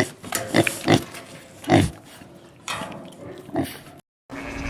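Farm animal making a run of about seven short, low calls at irregular intervals, cut off abruptly near the end.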